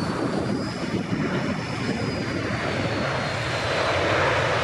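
Airliner's engines, a steady rush with a thin high whine that rises slightly and falls back, growing louder near the end.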